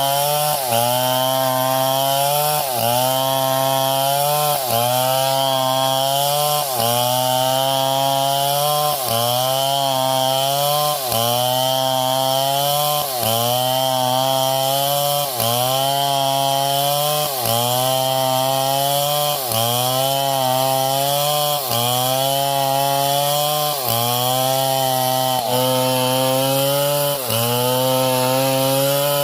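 Small chainsaw engine running. Its pitch dips sharply and climbs back in a very regular cycle about every two seconds.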